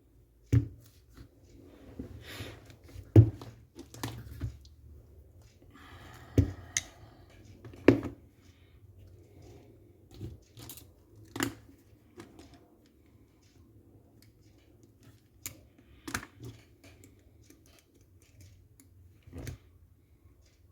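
Scattered clicks, taps and short scrapes of small parts and tools being handled while an airsoft M14's V7 gearbox is taken apart, with a few louder knocks in the first half and sparser clicks later.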